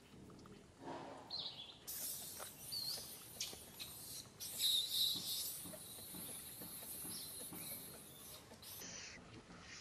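Baby macaque giving high, squeaky cries while its mother pins it down and bites it, loudest about five seconds in, over a high insect-like hiss.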